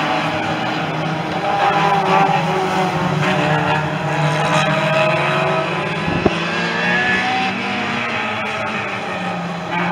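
Several hot saloon stock car engines revving hard together, their pitches rising and falling as the pack laps the oval. A single sharp bang comes about six seconds in.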